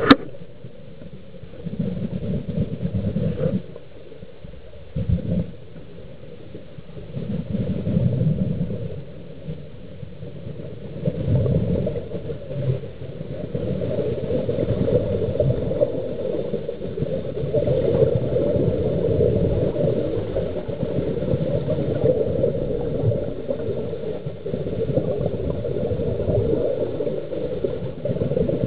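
A scuba diver's regulator heard underwater: surges of exhaled bubbles lasting a second or two every few seconds over a steady low hum, running together more continuously in the second half.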